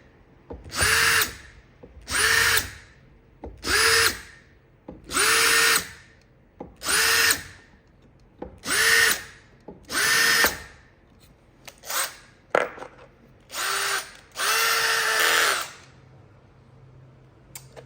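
Cordless drill running a countersink bit into wood screw holes in short bursts of about a second, nine or so times, each burst spinning up to a steady whine, with two very brief blips near the end.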